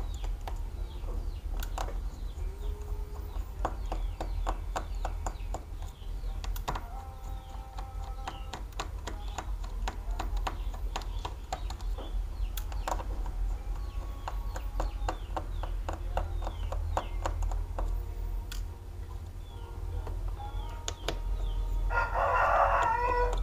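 Small clicks and taps of tools and fingers working on an opened smartphone's internals, over a low steady hum. Bird calls sound in the background, with one louder call near the end.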